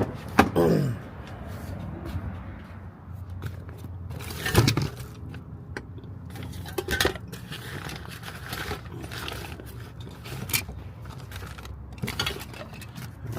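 Metal hand tools and sockets clinking, scraping and rattling, as when someone rummages through a toolbox for an extension, with a sharper knock about four and a half seconds in. A steady low hum runs underneath.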